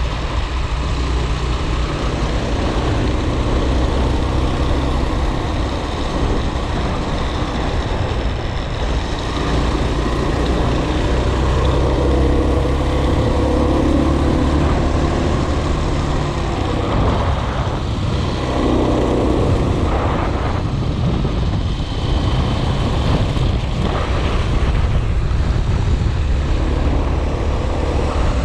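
Steady low rumble of a vehicle being driven, engine and road noise together, with a few brief swells in the middle.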